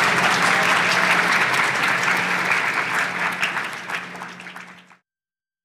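A group of people applauding, a dense patter of many hands clapping that fades near the end and cuts off about five seconds in.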